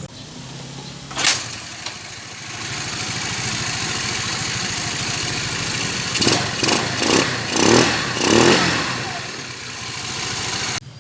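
GY6 scooter engine running, with a sharp burst just over a second in and a series of quick revs from about six to nine seconds in.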